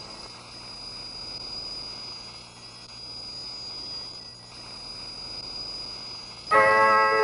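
Shortwave radio static: a steady hiss with a thin, high, unchanging whistle. About six and a half seconds in, a station's musical interval signal cuts in abruptly and much louder, a short repeating phrase of held notes.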